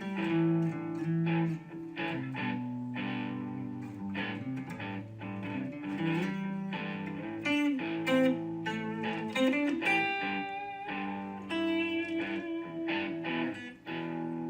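Background music led by plucked guitar, with picked notes over a steady lower accompaniment.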